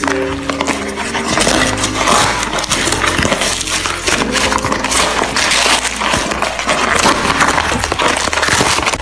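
Plastic courier mailer bag and its inner plastic wrapping being torn and crumpled open by hand: a dense, irregular crackling rustle.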